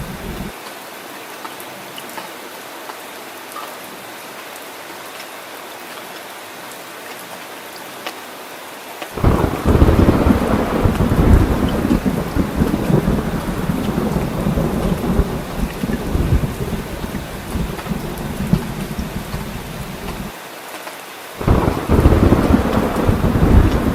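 Steady rain falling, with a loud, low rumble of thunder that cuts in suddenly about nine seconds in, drops away for a second near the end, then comes back.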